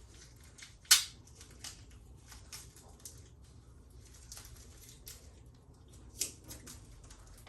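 Packaging and loose parts rustling and clicking as they are handled and taken out of a box, with a sharp snap about a second in and a smaller one about six seconds in.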